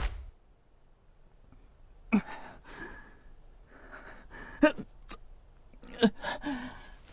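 A man's short, sharp breaths and gasps, with a few brief grunts, coming every second or so after about two seconds of near quiet; a small click about five seconds in.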